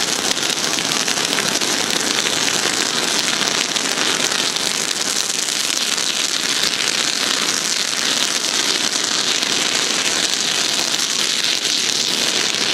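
Several pyrotechnic ground fountains burning at once, a loud, steady hiss of spraying sparks.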